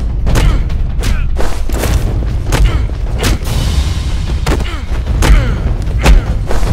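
Action-scene sound effects: a rapid series of loud booming hits and shots, about two a second, over a steady low rumble.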